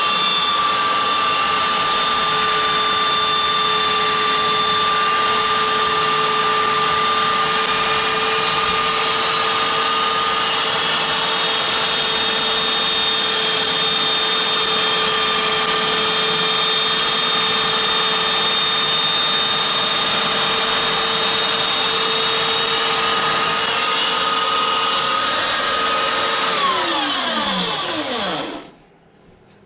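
Electric belt sander, clamped in a jig, running steadily with a constant whine while a piece of wood is sanded on its table. Near the end it is switched off and the whine falls in pitch as the belt spins down to a stop.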